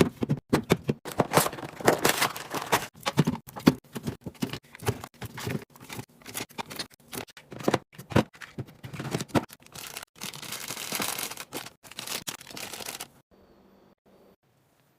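Snack packaging crinkling and rustling as it is handled, with quick irregular clicks and taps of items being set in place. The sounds stop abruptly about thirteen seconds in.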